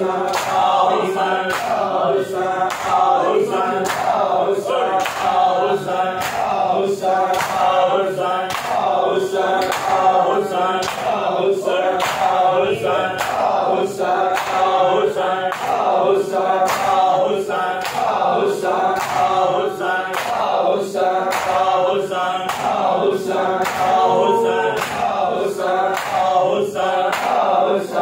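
A crowd of men chanting a mourning noha in unison while beating their chests together in matam. The open-handed slaps on bare chests keep a steady beat under the voices.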